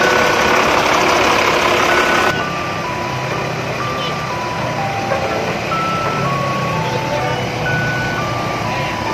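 Background music: a simple electronic melody of short single notes stepping between different pitches, over low bass notes. For the first couple of seconds a dense noisy rush lies under it, then cuts off abruptly.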